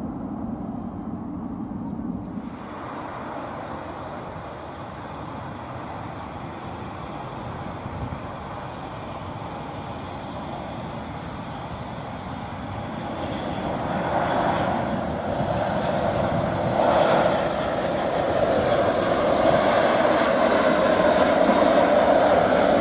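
Jet engines of a Boeing 737 MAX 8 (CFM LEAP-1B turbofans) arriving, the rushing engine noise growing steadily louder through the second half. Before a cut about two seconds in, a different steady aircraft engine noise is heard.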